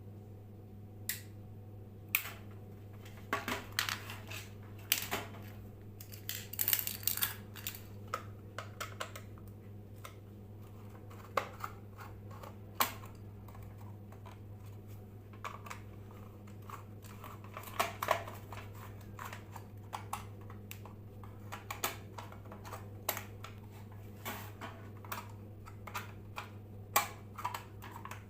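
Steady low electrical hum, the humming of a ceiling fan run from a UPS or inverter, with many irregular clicks and taps of handling over it.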